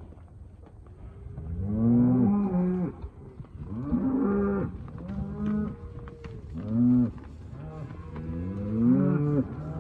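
Hereford and black baldy cows mooing over and over, about five low calls that rise and fall in pitch, the first starting a second or so in.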